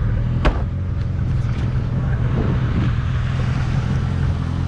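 Toyota Starlet's 4E-FTE turbocharged four-cylinder engine idling steadily, with a single sharp click about half a second in.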